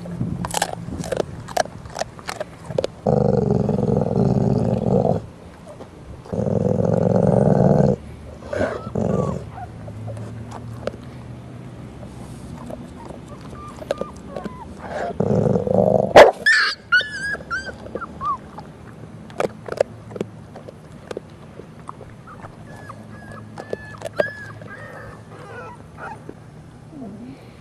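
Pit bull growling low in three loud spells of about two seconds each, with sharp crunching clicks of chewing between them. Near the middle come a few high squeaky puppy whimpers.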